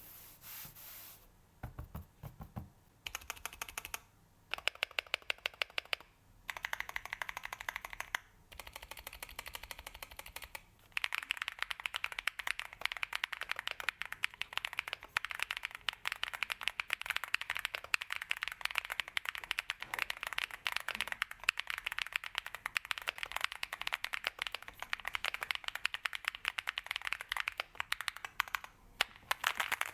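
Typing on a mechanical keyboard, the KeysMe Mars 03 with its pre-lubed Gateron Mars switches: short runs of fast keystrokes at first, then continuous rapid typing.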